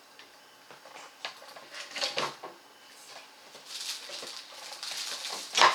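Hands handling a plastic action figure and its parts: scattered light clicks and a stretch of rustling, then one sharp knock near the end as something is set down hard.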